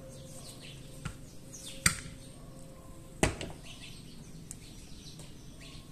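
A Beretta 950 .22 pocket pistol being handled in gloved hands and set down on a workbench mat: a few sharp clicks and knocks, the loudest about two and three seconds in, with faint high chirps in between.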